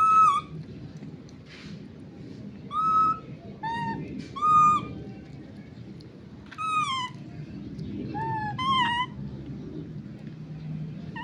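Baby monkey giving short, high-pitched calls, about seven of them spaced irregularly, some dropping in pitch at the end.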